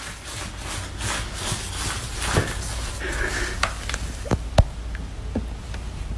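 Steady hiss and low hum with a handful of short, sharp taps and clicks, the loudest about three quarters of the way through.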